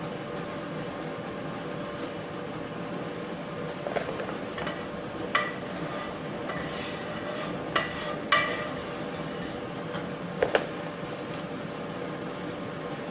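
Quiet kitchen room tone: a steady mechanical hum, with a handful of light clicks and knocks of kitchenware being handled about four, five, eight and ten seconds in.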